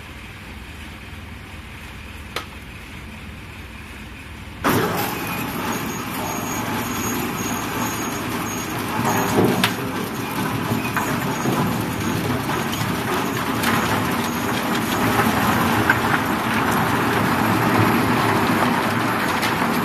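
Wheel loader's engine running low, then about five seconds in a loud, dense clattering starts as a grapple-load of thin logs drops into a roller log debarker: wood knocking and scraping against the turning spiked rollers as the bark is stripped, growing a little louder toward the end.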